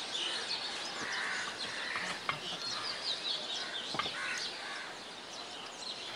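Birds calling, with fowl clucking among them, over soft wet squishing from a hand mashing boiled potato and jackfruit in a steel bowl of liquid, and a couple of light clicks.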